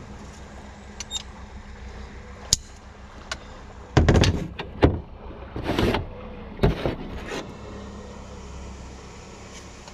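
Handling noises from working on a van roof: a few sharp clicks from the caulking gun, then, about halfway through, a cluster of louder knocks and scrapes as the gun and tools are put down and a plastic mushroom roof vent is picked up.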